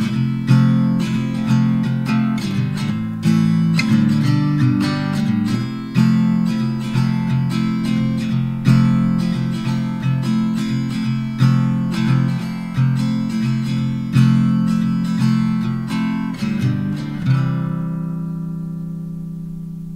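Background music: acoustic guitar played in a steady run of plucked notes and chords, ending on a chord that rings and fades out over the last couple of seconds.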